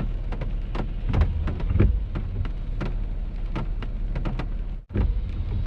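Heavy rain pelting a vehicle, with dense sharp drop impacts over a steady low rumble, heard from inside the car. A deep rumble of thunder swells about a second in. The sound cuts out briefly near the end.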